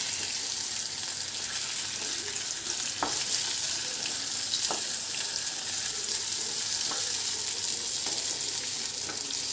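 Turmeric-coated potato pieces sizzling steadily in hot oil in a non-stick kadhai, turned with a wooden spatula that taps the pan lightly a few times.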